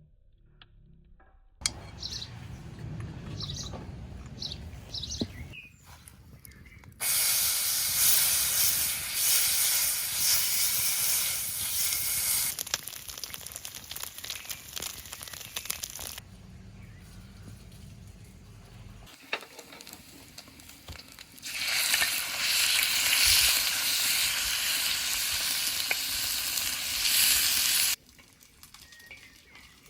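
Food sizzling as it fries in a hot pan, a loud even hiss in several separate stretches that start and stop abruptly.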